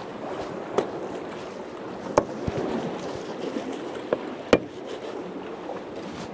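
Four sharp knocks as a bolo knife chops the heads off mackerel on the pier's wooden edge, over a steady wash of wind and water.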